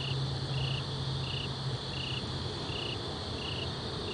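A cricket chirping steadily, short even chirps about three every two seconds, over a low steady hum that drops away about two seconds in.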